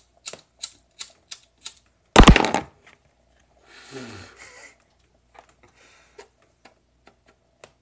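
A quick run of sharp clicks, about three a second, then a loud burst of noise about two seconds in. A short low voice sound follows, falling in pitch, then a few scattered clicks.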